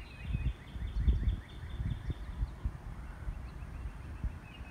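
Wind buffeting the microphone in irregular gusts. A bird calls in a fast run of repeated chirps for about the first half, then briefly again near the end.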